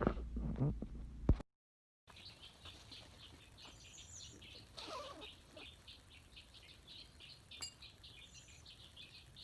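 Birds chirping in a rapid, steady series of short high notes, several a second, over quiet outdoor ambience. A brief lower call sounds about five seconds in.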